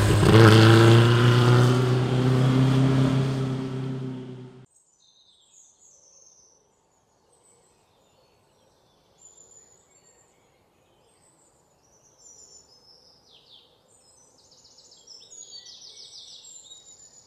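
A sport motorcycle's engine running loud, cut off abruptly about four and a half seconds in. Then faint bird chirps, with rapid trills growing busier near the end.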